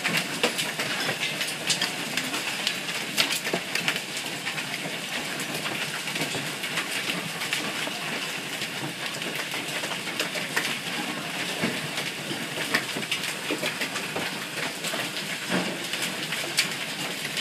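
Hailstones coming down steadily in a hailstorm: a dense patter of many small impacts with sharper cracks scattered through it.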